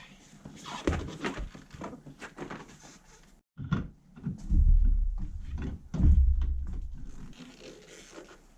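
Spare tire and wheel being handled and set into place in the back of a Suburban: scattered knocks and clunks, then two heavy thuds about a second and a half apart, each with a low rumble after it.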